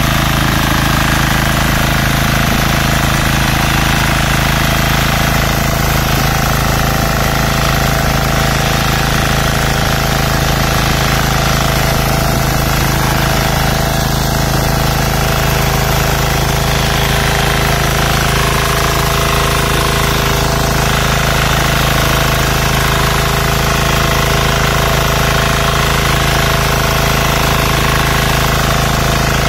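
Texas Alligator 9DPE power weeder's engine running steadily at a constant speed while its rotary tines work through flooded paddy mud.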